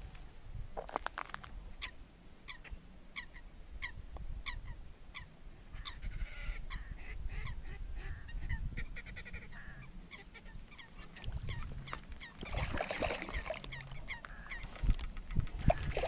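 Birds calling over and over in short repeated calls. Near the end a hooked crucian carp splashes loudly at the surface as it is played on a float rod.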